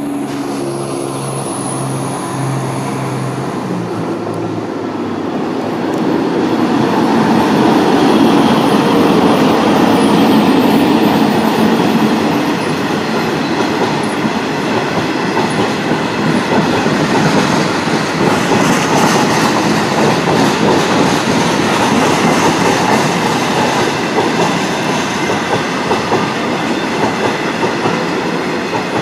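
A Class 60 diesel locomotive's engine drones in the first few seconds as it passes. Then a long train of steel coil wagons rumbles by, its wheels clattering over the rail joints.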